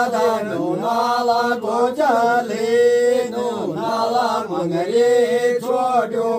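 Voices chanting a devotional song for a jagar, the Uttarakhandi ritual that calls on the village deities. The melody rises and falls without a break over a steady held low note.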